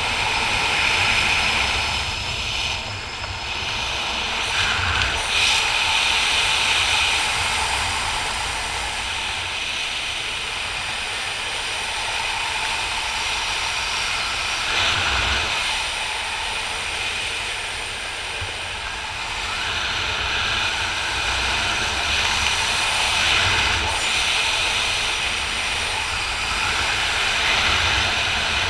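Wind rushing over the camera's microphone during descent under an open parachute canopy: a steady noise with a low rumble that swells and eases every few seconds.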